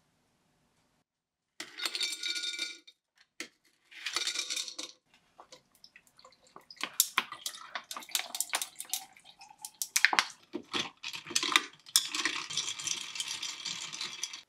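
Ice cubes clicking in a tall glass as a blue lemonade drink is poured over them from a carton. Near the end it is stirred with a straw, the ice rattling steadily against the glass. Two short bursts of sound come earlier, a couple of seconds in and about four seconds in.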